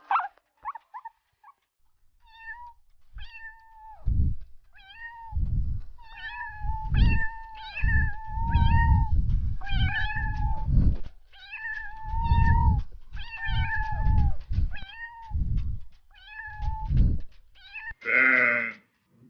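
Cat meowing over and over in short, high, evenly pitched calls, about two a second, with low rumbling noise beneath many of them.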